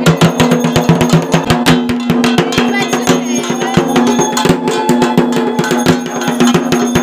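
Loud music with fast, dense drumbeats over steady held low notes.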